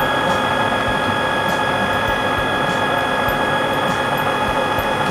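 Food processor motor running steadily with a constant high whine as it whips vegetable-fat cream in its plastic bowl.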